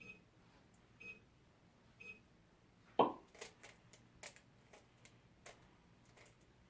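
Three short electronic beeps, evenly a second apart, from the cube timer counting down the end of inspection. A sharp knock follows about three seconds in, then the light plastic clicks of a 3x3 Rubik's cube being turned quickly.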